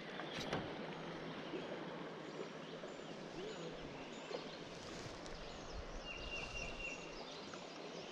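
Quiet outdoor ambience: a steady even rush of background noise with small birds chirping now and then, and a short rapid trill of a bird about six seconds in.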